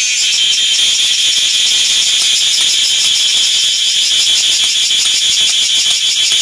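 Loud insect chorus: a high, fast-pulsing trill over a steady high buzz.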